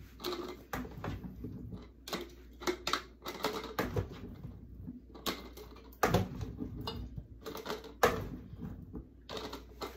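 Cooked potato chunks being spooned through a red plastic canning funnel into a glass jar: irregular clinks and knocks of the spoon against funnel and jar, with potato pieces dropping in.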